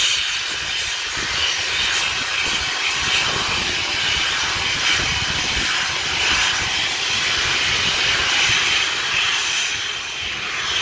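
Steam locomotive venting steam with a loud, steady hiss that starts suddenly, as its cylinder drain cocks blow off clouds of steam at rail level while it gets under way.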